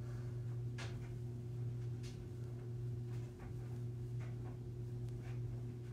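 Steady low hum with faint short thuds about once a second, from feet landing on carpet during alternating straight-leg kicks.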